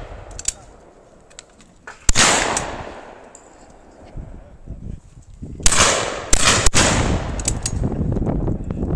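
Over-and-under shotguns fired at clays: a single shot about two seconds in with a long fading tail, then three shots in quick succession around the six-second mark. After them comes a steady loud rushing noise.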